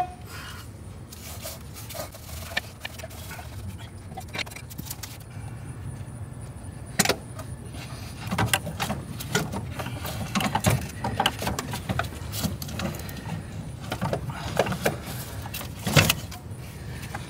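Scattered metallic clinks, knocks and scrapes as a stuck alternator is pried and worked loose from its mounting in a car's engine bay, with two sharper knocks, one about seven seconds in and one near the end.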